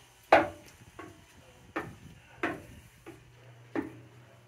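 Footsteps on a steep steel ship's ladder: shoes striking the metal treads in short ringing clangs, four strong ones roughly every three-quarters of a second, the first the loudest, with two lighter taps between.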